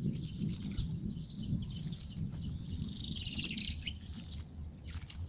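Liquid pouring from a watering can's spout onto mulched soil, a continuous low splashing. About three seconds in, a songbird sings one short, rapid high phrase.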